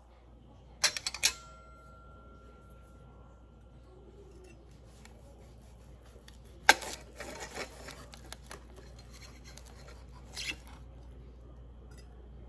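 Steel knife and fork clinking and scraping against a ceramic plate while a steak is cut. A quick cluster of clinks about a second in leaves a ringing note that fades over a few seconds; a sharp clink near the middle is followed by light tapping, and a short scrape comes near the end.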